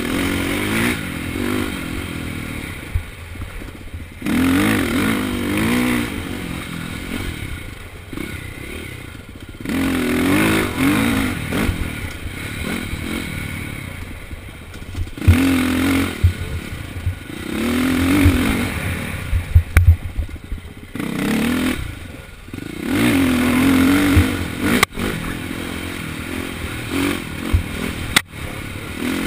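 KTM dirt bike engine being ridden on a trail, revving up and easing off again and again, its pitch rising with each burst of throttle. A few sharp knocks near the end.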